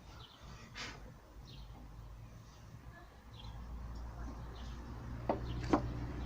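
Faint bird chirps over a low steady hum that grows louder after the middle, with two sharp knocks near the end.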